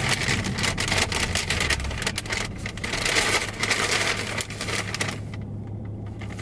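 Car engine running, heard from inside the cabin as a steady low hum, under dense crackling and clicking noise that thins out near the end.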